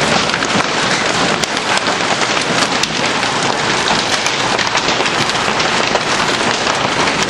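Hail and heavy rain pelting down in a thunderstorm: a loud, steady hiss of rain dotted with many sharp ticks of hailstones striking.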